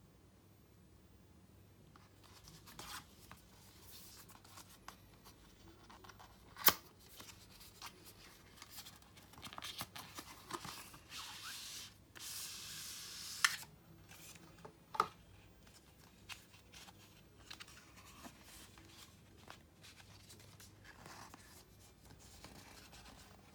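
Cardboard and paper packaging of an Apple Watch box being handled: rustling, tearing and sliding, with a few sharp clicks and taps. A longer stretch of tearing or sliding comes about halfway through and ends in a click.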